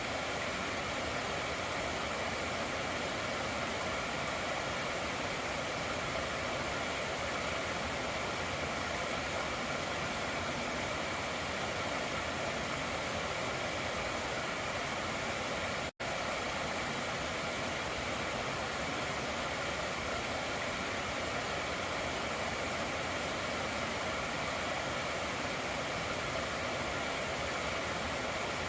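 Stream water running steadily in a continuous rush, with a momentary dropout to silence about halfway through.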